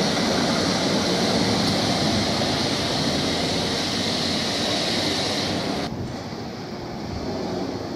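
Heritage electric tram running on street rails: a steady rushing, rumbling noise of wheels on track. About six seconds in it cuts to a quieter, lower rumble.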